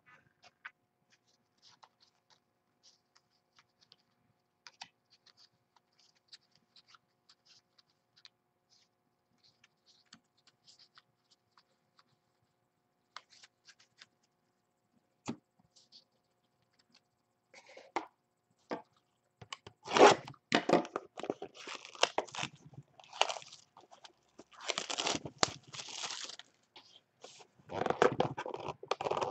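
Plastic shrink-wrap being torn and crinkled off a sealed box of trading cards. After a long quiet stretch with only a few faint clicks, repeated loud bursts of tearing and crinkling start about two-thirds of the way in and go on to the end.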